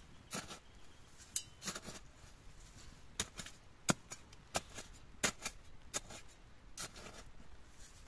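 A small hand shovel digging into soil: the metal blade chops and scrapes the ground in sharp, irregular strokes, roughly two a second.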